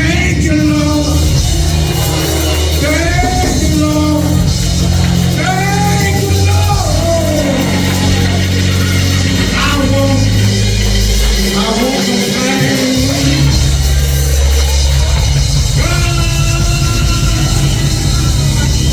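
Loud church band music with a heavy bass line and drums, and a melody line that bends like singing or an organ.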